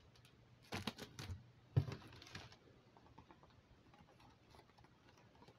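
Handling noises from packaged food being picked up and moved: two short spells of clicks and plastic rustling about a second in and again around two seconds in, then quiet room tone.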